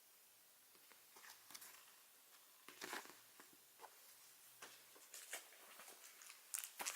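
Faint rustling and light taps of paper and plastic packaging being handled, coming in scattered short bits after about a second of quiet.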